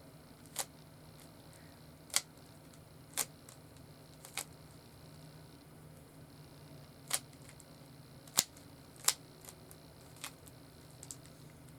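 Plastic Rubik's cube layers being twisted, each turn a sharp click, about nine at irregular intervals, two or three of them louder snaps.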